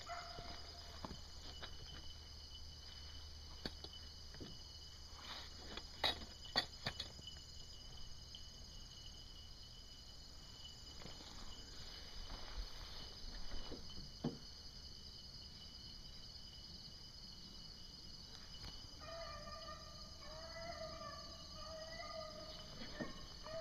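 Insects drone steadily at a high pitch, with a few footsteps on the track about six seconds in. From about nineteen seconds in, faint repeated baying from a pack of beagles on a rabbit's trail.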